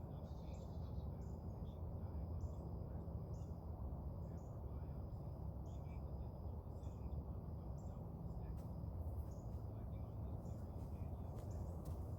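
Outdoor ambience: a steady low rumble with short high chirps repeating about once a second.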